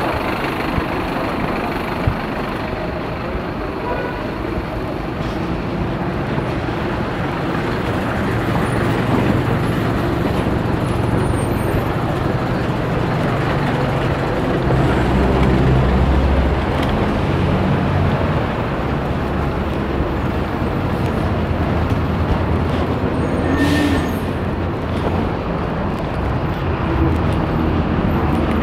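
Street traffic: a steady wash of passing cars and heavier vehicles, with a low engine rumble growing louder in the middle.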